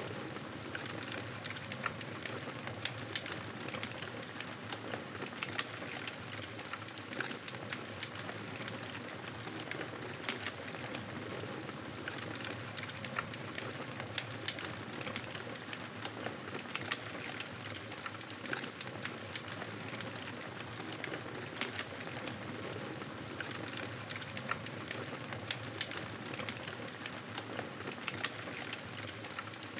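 Campfire burning steadily, with a constant hiss and frequent small crackles and pops.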